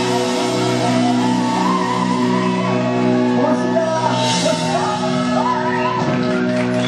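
Indie rock band playing live in a hall: sustained chords with a singer's voice over them, in the closing bars of the song.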